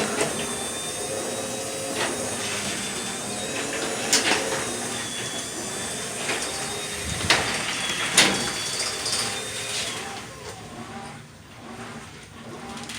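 Chamberlain HD220 chain-drive garage door opener running, with a thin high whine and the chain and door clattering, punctuated by a few sharp clunks. It stops about ten seconds in.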